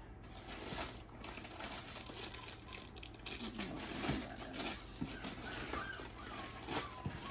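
Plastic treat packaging crinkling and rustling, with small irregular clicks and knocks, as packets of dog dental sticks are handled and picked through in a plastic bin.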